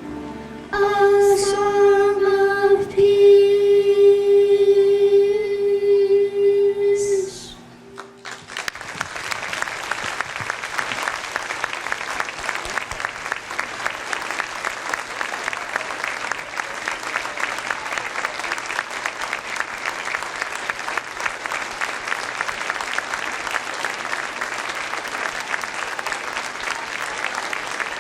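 Children's choir holding a final sung note for about six seconds, cut off together, then an audience applauding steadily for the rest of the time.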